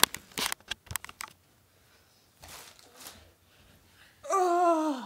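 Handling noise: a quick run of sharp clicks and knocks in the first second or so as the camera is picked up and moved. Near the end a loud, drawn-out vocal cry that falls in pitch.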